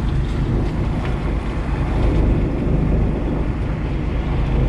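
Wind rushing and buffeting on the microphone on an open fishing-boat deck, over the boat's steady low drone and the sea washing along the hull.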